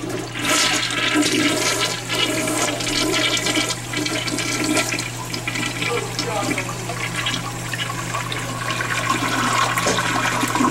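Toilet flushing: water rushes into the bowl about half a second in and swirls steadily down the drain.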